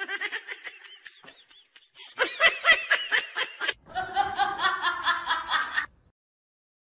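A person laughing in three spells, the last a quick run of even, repeated laughs that stops about six seconds in.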